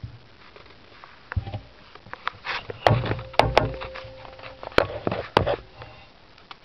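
Handling noise as the camera is moved about and gripped: a run of sharp knocks and clicks with rustling between them, loudest from about three to five and a half seconds in.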